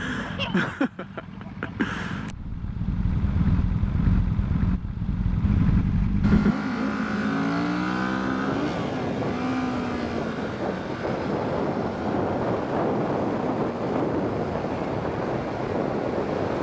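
Kawasaki Z650 parallel-twin motorcycle engine pulling away from a stop and accelerating, its pitch rising as it runs up through the gears. From about ten seconds in, wind rush on the microphone takes over as the speed builds.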